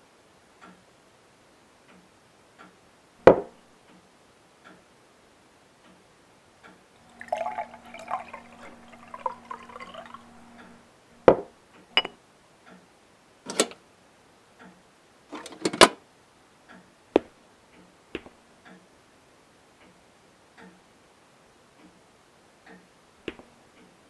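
Clock ticking about once a second, with sharp clinks of glass decanters and a drinking glass being handled. For several seconds in the middle, liquor is poured from a decanter into the glass.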